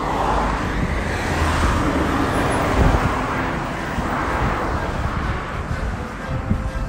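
Road traffic on a street: cars passing with a low rumble and tyre noise that swells twice.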